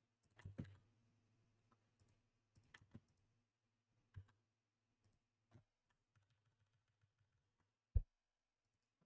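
Computer keyboard keys clicking, a few faint scattered taps with a short run of typing about three seconds in, and one louder low knock about eight seconds in.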